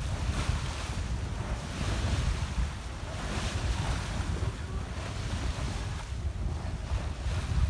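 Wind buffeting the microphone over the rush and splash of sea water along a sailboat's hull under way. The hiss of the water swells and eases every second or so.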